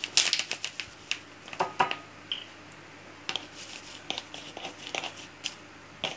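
Thin plastic bottle of dried mint being shaken and tapped over a bowl: a run of irregular crinkles and clicks from the plastic.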